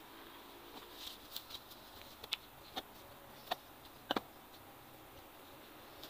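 Hands working in dry soil and twigs: scattered light clicks and rustles, with two sharp knocks close together about four seconds in.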